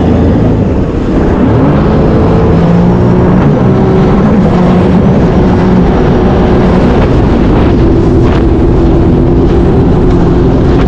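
Sea-Doo jet ski engine running under way. Its pitch climbs over the first few seconds, then holds steady.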